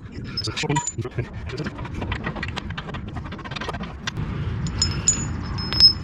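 Bolts and metal hardware rattling and clinking as they are handled: a run of small knocks, with a few sharp, briefly ringing metallic clinks near the end.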